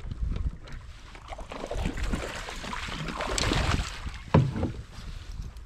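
Irregular hissing and rustling noise aboard a fishing kayak on the water, swelling a couple of seconds in, then a single sharp knock a little after four seconds.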